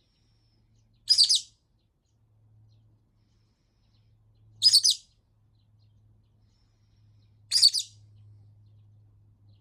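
Lovebird giving loud, shrill, piercing calls, three short ones about three seconds apart, part of nonstop calling that the owner takes for frustration at not being played with.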